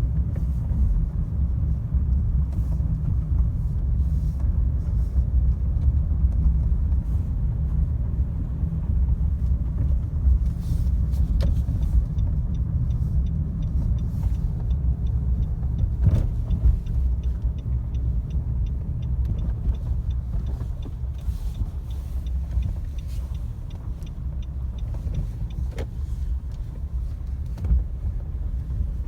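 Car driving on a rough, long-unrepaired city road, heard from inside: a steady low rumble of tyres and engine, with a few thumps as it goes over bumps.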